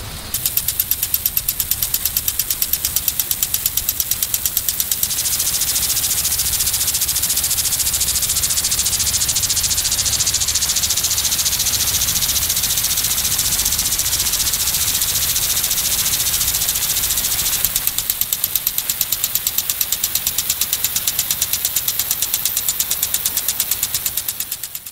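Large impact sprinkler running: its swinging arm strikes the water jet in a rapid, even ticking over the hiss of the spray. For a long stretch in the middle the spray hiss grows louder and the ticking recedes, then it comes through again near the end.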